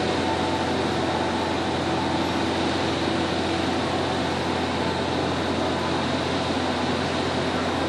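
Steady droning hum with an even rushing noise, like a running fan or air-conditioning machine. It does not change and has no distinct knocks or clicks.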